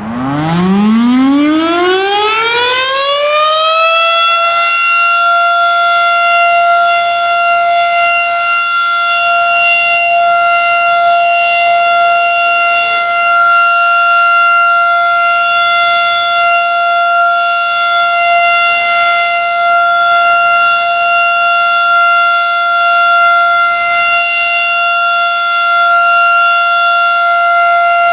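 Federal Signal STH-10 outdoor warning siren, a 10-horsepower unit, winding up from a low pitch to full speed over about four seconds, then holding one steady, loud tone. It is sounding for a routine monthly test.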